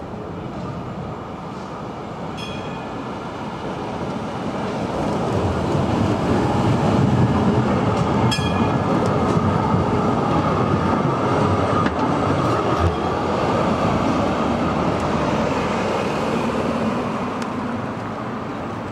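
HTM city tram running past on street track: its rumble and wheel noise grow as it approaches, are loudest while it passes close, and fall away near the end. Two brief high-pitched tones ring out, about two and a half and eight seconds in.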